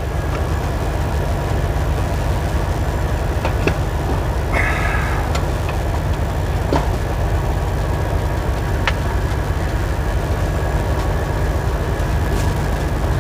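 Vehicle engine idling with a steady, low, even rumble. A few light clicks and a short rustle about five seconds in sit on top of it.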